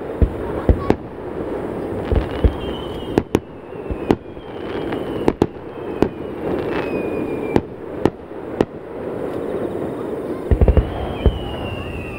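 Aerial firework shells launching and bursting in a run of sharp booms, several close together near the end, echoing off the surrounding mountains. Three whistling tones that fall in pitch sound between the bangs.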